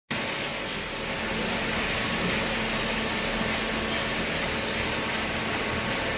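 Small hydraulic cardboard baler running: a steady hum from its motor and pump over a broad hiss, starting abruptly and holding level.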